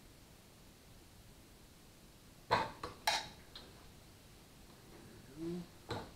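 Sharp metallic clicks and clinks from a torque wrench and socket on the engine's connecting-rod bolts as they are tightened: a cluster of clicks about two and a half to three and a half seconds in, and another near the end.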